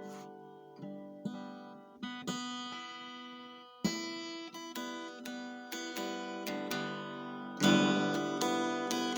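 Acoustic guitar playing: chords struck one at a time and left to ring, then louder, quicker strumming starting near the end.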